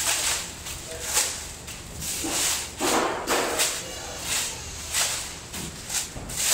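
Large plastic sheet rustling and crinkling in a series of swishes as it is shaken out and spread over a ball of dough, loudest about halfway through.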